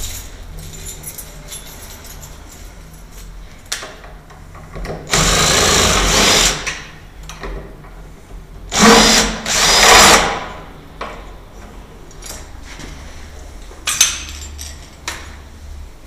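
Cordless DeWalt impact driver turning the screws of a door lock: three bursts of the motor, a longer one of about a second and a half, then two short ones back to back a few seconds later, each spinning up and winding down. A few sharp knocks of tool handling come before and after.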